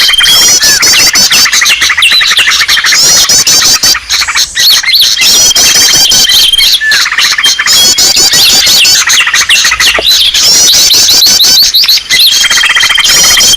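Bird-lure recording of many small songbirds chirping and trilling at once, a dense, loud chorus of fast high chirps. A held high whistle returns about every six seconds. It is the kind of call mix played to draw small birds in.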